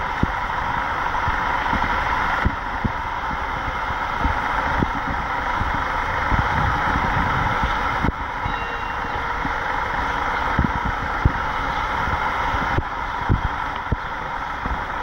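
Steady hum of distant road traffic, with wind buffeting the microphone in scattered low thumps.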